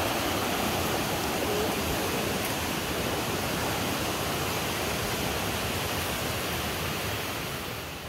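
Steady rush of the Perequê River's flowing water, fading a little near the end.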